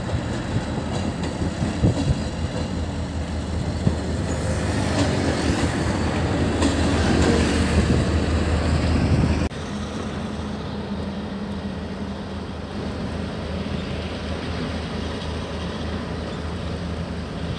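A Taiwan Railways train rolling past, with a low rumble and clattering wheels that grow louder. About nine and a half seconds in, the sound cuts off abruptly and gives way to a quieter, steadier running sound.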